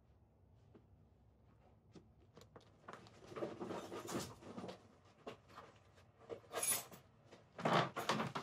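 Clothes and a bag being handled and rustled: scattered small clicks, then a run of short rustles and scuffs from about three seconds in, loudest near the end.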